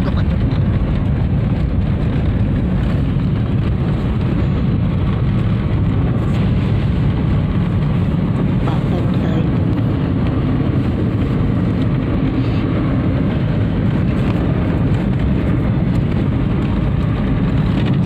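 Steady road and engine noise heard inside the cabin of a car driving at speed, a constant low rumble.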